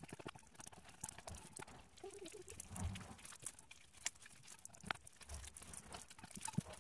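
Clear-glue slime being kneaded by hand in a metal mixing bowl: soft, irregular sticky clicks and squishes as it is squeezed and pulled.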